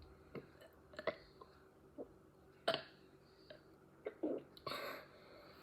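A girl gulping air and trying to burp: a string of short clicks and gulps from the mouth and throat, with a small low burp a little after four seconds in and a breathy push of air near the end.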